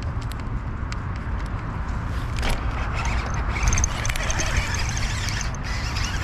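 Steady low rumble of wind on the microphone, with rustling and clicking from a baitcasting rod and reel as it is cast and then reeled in.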